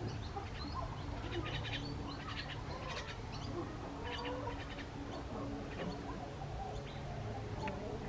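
Backyard birds chirping in short, rapid high trills again and again, with chickens calling in the background.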